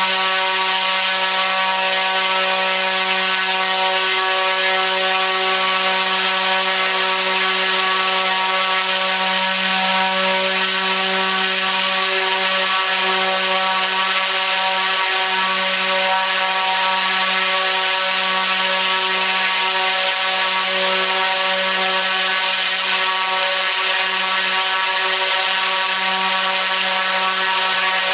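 T-Motor U13 100kV brushless motor spinning a 29-inch three-blade carbon propeller at full throttle on a test stand: a loud, steady drone with a constant low hum and whine over a rush of air, holding the same pitch throughout.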